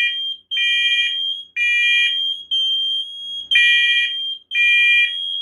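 Several interconnected First Alert smoke alarms sounding together, their piezo horns beeping about once a second. Their shrill tones sit at different pitches and overlap out of step.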